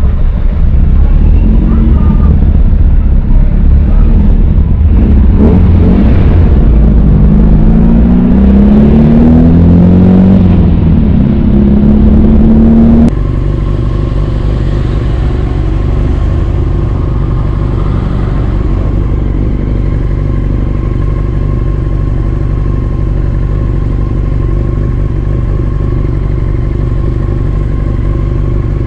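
Yamaha R6 inline-four sport-bike engine accelerating hard, its pitch rising several times as it pulls through the gears. About halfway through the sound cuts abruptly to the engine running at low, steady revs.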